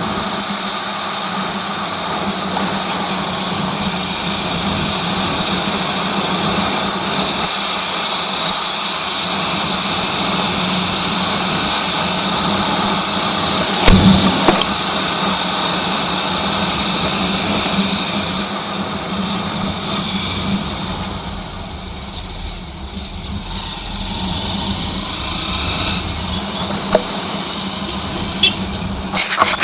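Single-cylinder Honda XR 250 Tornado motorcycle engine running steadily while riding, mixed with rushing wind noise. There is one sharp knock about fourteen seconds in, and the sound eases off for a few seconds past the twenty-second mark.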